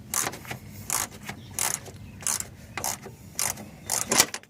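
Ratchet wrench working a 10 mm bolt loose, its pawl clicking in short, even strokes about one and a half times a second.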